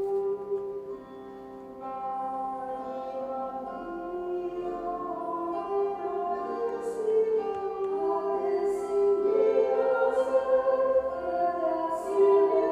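Slow vocal music: singing voices hold long, smoothly connected notes that move from pitch to pitch.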